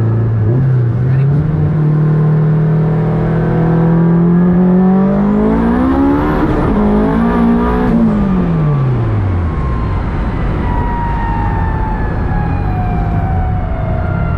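The AWD Honda Del Sol's engine, heard from inside the cabin, pulling hard with its pitch climbing for about six seconds alongside a faint high rising whistle. After a short break around the middle, the engine eases off and its pitch drops away as the car slows, over steady road noise.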